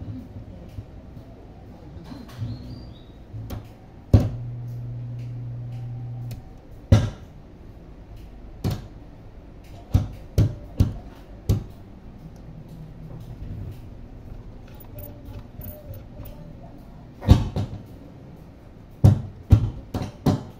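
Sharp clicks and knocks from handling a Gradiente S125 stereo receiver on the workbench, in an irregular series with clusters around the middle and near the end. A low steady hum sounds for about two seconds, starting about four seconds in.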